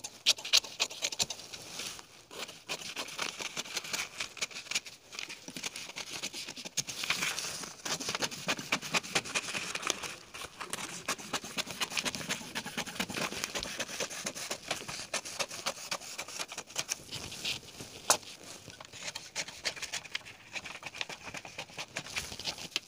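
Scissors cutting through pink pattern paper: a long, irregular run of quick, crisp snips, with the paper rustling as it is handled.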